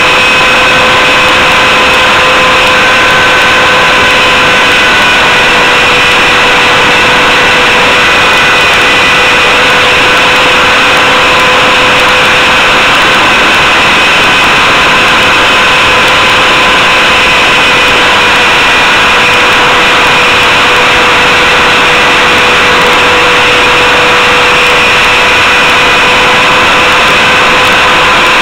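RC helicopter's motor and rotors heard from a camera mounted on the helicopter itself: a loud, steady whine at an unchanging pitch, over a dense rushing noise.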